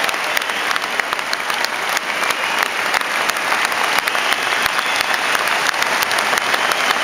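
Large stadium crowd applauding steadily: a dense, even wash of many thousands of hands clapping.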